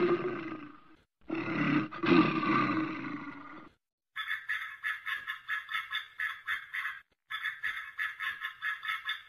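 Cartoon bear sound effect: a bear roaring twice in long, rough roars. From about four seconds in, a quick run of short bird calls follows, about four a second, with a brief break near seven seconds.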